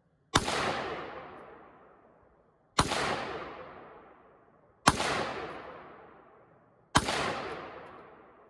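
Four single shots from a Radical Firearms RF-15 AR-15 rifle in 5.56/.223 with a 16-inch barrel, spaced about two seconds apart. Each shot trails off in a long echo.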